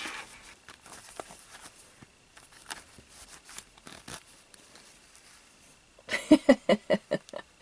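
Faint rustling and light clicks of hands handling crochet work, then about six seconds in a woman breaks into a quick run of laughter.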